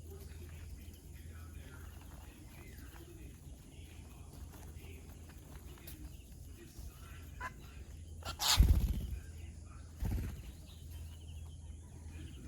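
Faint, scattered bird chirps over a low steady hum, broken by a loud rustling bump about eight and a half seconds in and a shorter one about ten seconds in.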